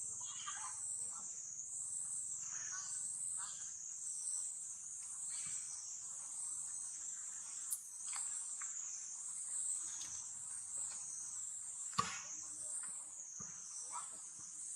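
A steady, high-pitched insect chorus that wavers in level, with faint indistinct sounds underneath and a sharp click about twelve seconds in.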